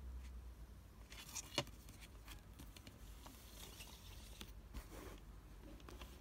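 Faint handling of a plastic CD jewel case and its paper booklet: light rustling and small plastic clicks, with one sharper click about a second and a half in.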